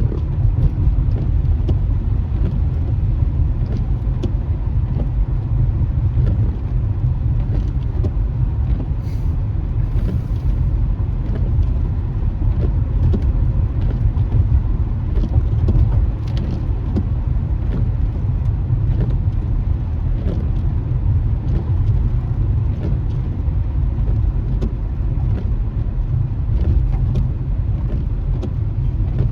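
Steady low rumble of a car driving on a rain-wet road, heard from inside the cabin, with scattered faint ticks.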